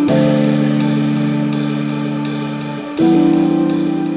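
Background music: sustained chords over a steady ticking beat, changing chord about three seconds in.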